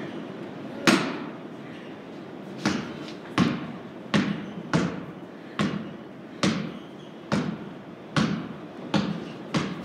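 A basketball dribbled on a wooden plank floor, echoing in a large barn loft: one loud bounce about a second in, then a steady dribble from nearly three seconds on, about one bounce every three-quarters of a second.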